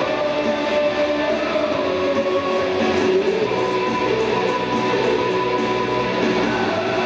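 Music with guitar playing steadily.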